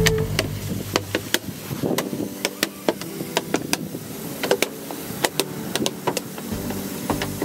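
Rapid, irregular clicks and knocks over a faint pitched background.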